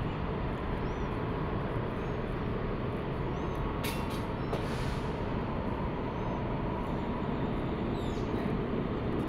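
Steady low rumbling background noise, like distant traffic or wind, with a brief click about four seconds in.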